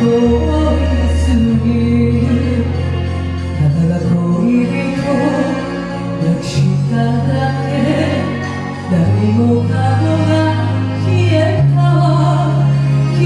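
Music: a slow ballad's accompaniment, with held bass notes changing every second or two under a wavering melody line.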